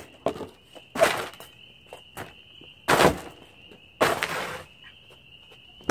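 Cardboard box being ripped apart and stamped flat on pavement: a handful of loud rips and stamps, a second or two apart. Behind them, a steady high chorus of spring peepers.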